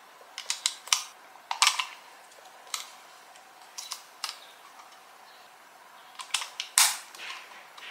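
Sharp plastic clicks and snaps from a Mofii wireless mouse being handled: its buttons are pressed and its battery compartment, which holds an AA battery, is worked. They come in several short clusters, with the loudest snap near the end.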